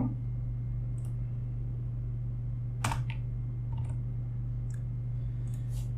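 A few scattered computer keyboard keystrokes, the sharpest about three seconds in and a quick cluster near the end, over a steady low hum.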